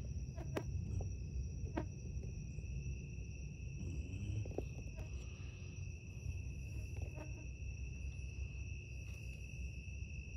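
Night insect chorus of crickets trilling steadily at two high pitches, with a few faint clicks.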